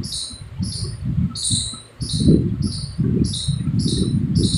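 Marker writing on a whiteboard, with irregular dull knocks and rubbing, while a short high chirp that falls in pitch repeats about twice a second.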